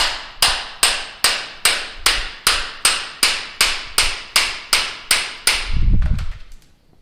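Hammer driving a chisel into a smartphone: sharp, evenly spaced metal blows, about two and a half a second, some fifteen in all. The blows stop near the end, just after a short low rumble.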